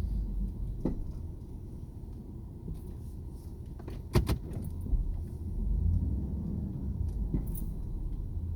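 Car driving, a steady low rumble, with a few sharp knocks and clunks; the loudest is a double knock about four seconds in.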